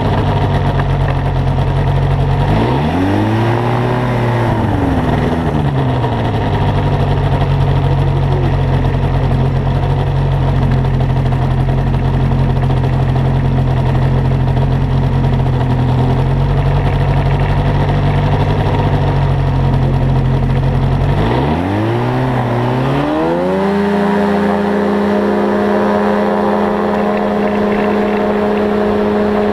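A light aircraft's piston engine runs steadily. About three seconds in, its revs rise briefly and fall back. Past twenty seconds they dip, then climb to a higher, steady power setting.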